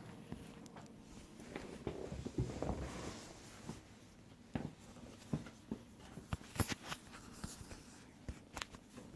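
Handling noises: rustling or scraping for a couple of seconds, then a scattering of sharp clicks and knocks.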